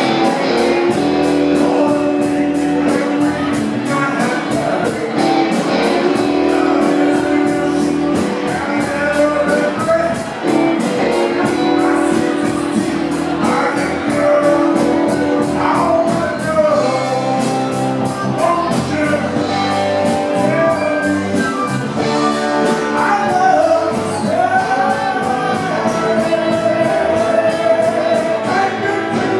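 A live rock band playing at full volume with a steady beat: electric guitars, bass, keyboard and timbales, with a violin among them. A sustained melody line slides between notes over the band.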